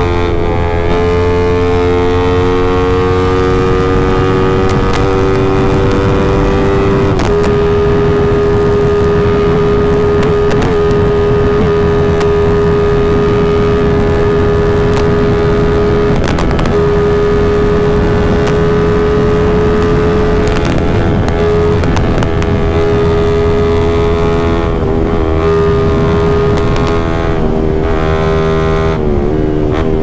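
Yamaha MX King single-cylinder four-stroke engine, bored up to about 170 cc, running hard at high revs at highway speed: a loud, steady engine note that rises slightly at first, then holds. Near the end the pitch dips briefly a few times.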